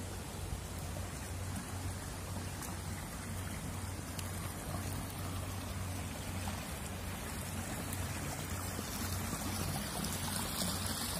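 Water running and trickling down a stepped stone channel in small cascades: a steady, even rushing hiss.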